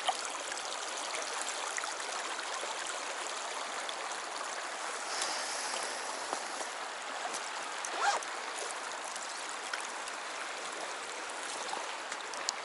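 Shallow stream flowing over a stony bed: a steady rush of running water, with a brief light knock about eight seconds in.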